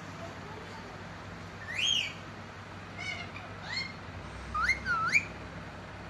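Indian ringneck parakeet giving about five short whistles that glide up and down in pitch: a rising-and-falling one about two seconds in, and a quick swooping pair near the end.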